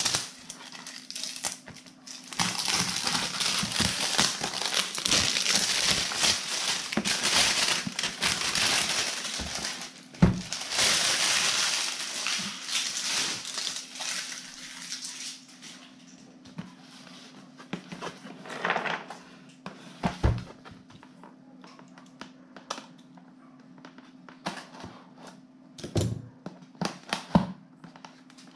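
Clear plastic shrink-wrap being pulled off and crumpled in the hands: a long stretch of dense crinkling and crackling. About halfway through it gives way to scattered knocks and taps as the cardboard box is handled.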